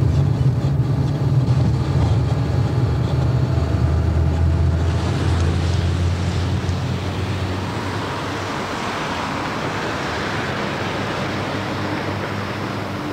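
Road traffic: a steady low engine drone that drops in pitch about five seconds in, with the hiss of passing traffic growing in the second half.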